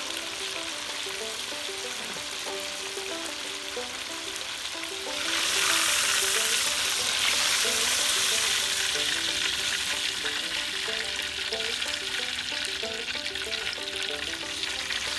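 Cracker-meal-coated perch fillets deep-frying in hot peanut oil, a steady sizzle that grows much louder about five seconds in and stays strong. A quiet melody plays underneath.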